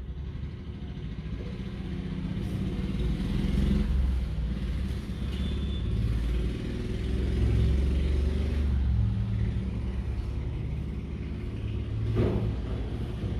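A motor's steady low rumble that grows louder over the first few seconds, with a single sharp knock near the end.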